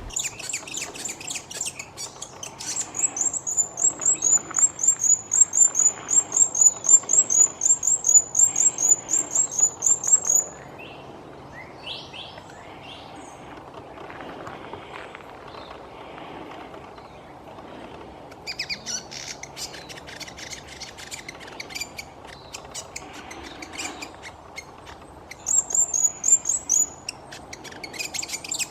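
Small birds chirping: a long, fast run of loud, high chirps at about four a second stops abruptly, and after a quieter stretch comes busier, overlapping chirping with a second short run near the end.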